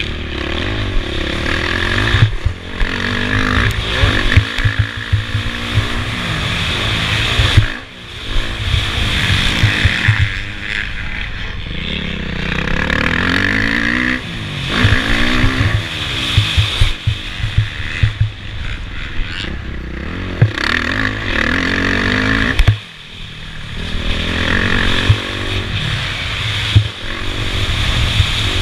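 Motocross bike engine under race throttle, heard from the rider's helmet: revving up and down repeatedly through corners and straights, with sharp throttle blips. The engine drops off sharply twice, about eight seconds in and again about two-thirds of the way through.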